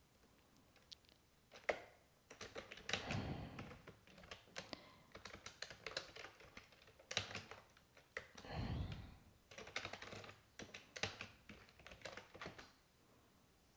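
Faint typing on a computer keyboard: irregular bursts of key clicks as a search phrase is typed in.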